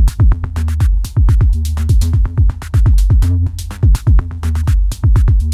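Electronic dance background music with a fast drum-machine beat: punchy kick drums, a deep bass line and crisp hi-hats.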